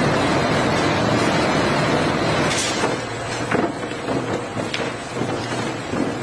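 Coconut-processing machinery running with a dense clattering noise, with sharp knocks; it eases into lighter clatter after about three seconds.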